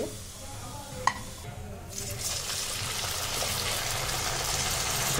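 Sabudana vada deep-frying in hot oil in a kadhai: a steady sizzle that sets in about two seconds in, after a single click about a second in.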